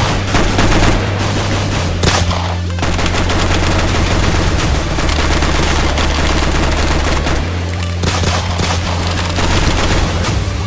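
Automatic rifle fire in long rapid bursts, with a brief pause about two and a half seconds in, over a steady low drone.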